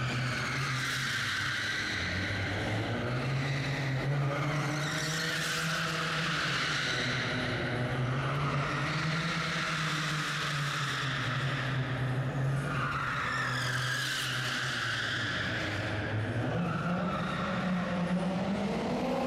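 Nissan 200SX drift car held at high revs through long slides, the engine's pitch wavering up and down with the throttle while the tyres squeal in waves; the revs climb near the end. The sound rings round a large indoor hall.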